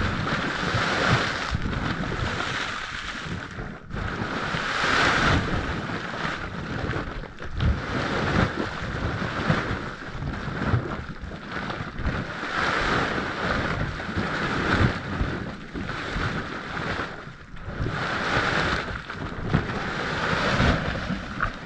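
Mud volcano venting steam: a steady hissing roar that surges every second or two, over a low rumble of churning, splashing mud.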